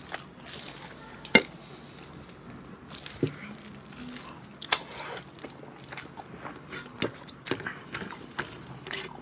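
Eating rice and curry by hand from steel plates: fingers mixing and scooping the food, with scattered sharp clicks and ticks against the metal plates and wet chewing and lip smacks. The loudest click comes about a second and a half in.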